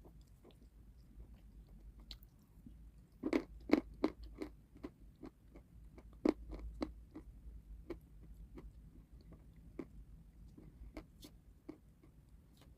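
Close-miked eating of crunchy food: sharp crunching bites and chewing, loudest in a run of crunches about three seconds in and again around six seconds, with softer chewing crackles between.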